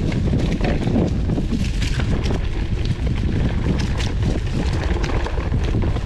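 Wind buffeting an action camera's microphone while riding a mountain bike, with frequent irregular clicks and rattles from the bike and tyres on rough trail.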